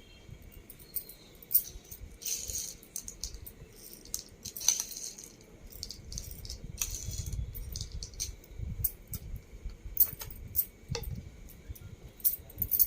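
Scattered light clicks and a few short dry rustles of bhelpuri being handled: crisp puffed-rice mix and toppings moved about with kitchen utensils.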